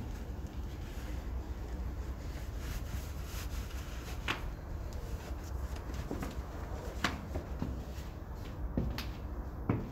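Stiletto-heeled sandals clicking on a tiled floor: a few separate clicks, then walking steps starting near the end, over a steady low rumble.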